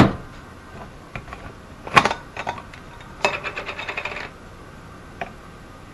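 Small metal measuring spoons clinking: a sharp clink about two seconds in, then about a second of rapid jingling rattle, and a light tap near the end.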